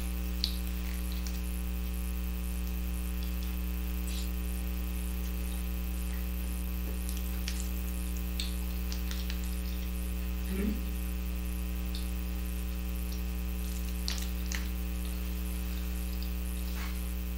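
Steady electrical mains hum, with faint scattered clicks and taps from food being handled with a utensil.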